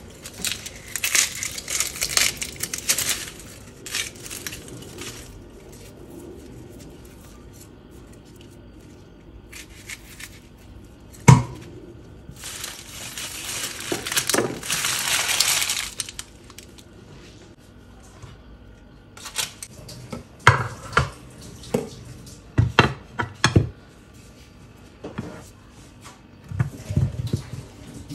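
Kitchen handling sounds: stretches of dry crinkling and rustling, a single sharp knock near the middle, and a run of short clattering knocks of dishes and utensils in the second half.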